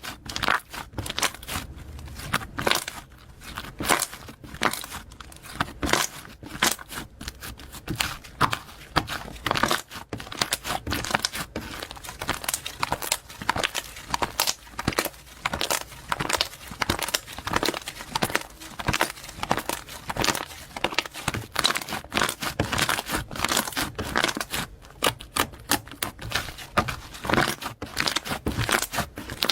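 Slime being squeezed and worked by hand, giving a dense, irregular stream of sticky clicks, pops and crackles.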